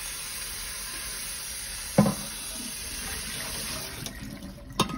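Kitchen faucet running water over a stainless steel pot being rinsed in the sink. There is a short knock about two seconds in. The water stops about four seconds in, and a sharp click follows near the end.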